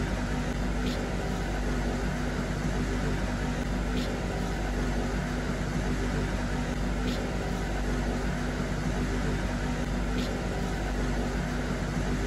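Steady low mechanical hum of workshop background noise, with a faint short tick about every three seconds.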